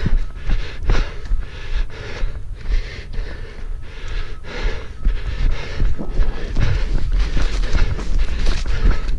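A runner's regular footfalls at running pace, with hard, heavy breathing and a low buffeting rumble of wind and jostling on a body-worn camera's microphone.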